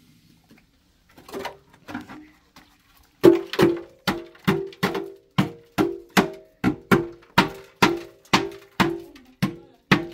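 Rhythmic knocking: after a couple of softer knocks, a steady run of sharp strikes about two a second begins a few seconds in, each with a short pitched ring.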